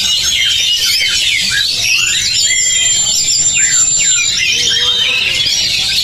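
Many caged oriental magpie-robins (kacer) singing at once in competition: a dense, overlapping chorus of whistles, trills and chatter. A long, high, steady whistle stands out from about two seconds in until past the four-second mark.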